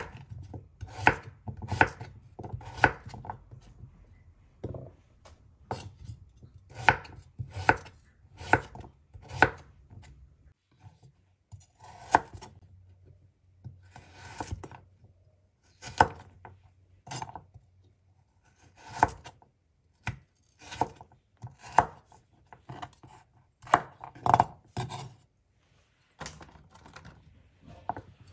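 Chef's knife slicing a peeled white root vegetable and then a carrot on a wooden cutting board, each cut ending in a sharp knock of the blade on the board. The cuts come slowly and unevenly, about one a second, sometimes in quick pairs.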